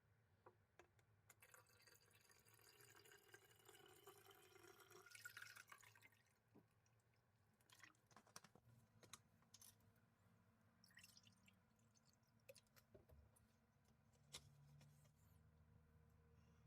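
Near silence, with faint trickling water for the first few seconds, then a few scattered small clicks.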